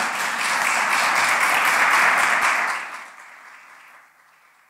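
Audience applauding, loud for nearly three seconds and then dying away.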